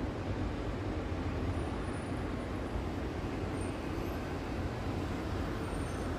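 Steady, even hum of distant city traffic, heaviest in the low rumble, with no distinct events standing out.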